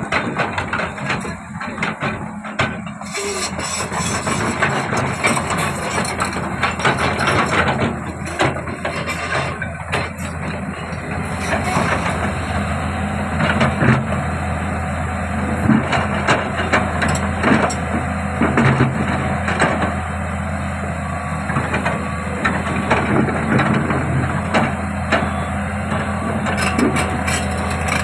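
A Komatsu heavy machine's diesel engine running steadily under work, with repeated knocks and clatter of boulders being picked up.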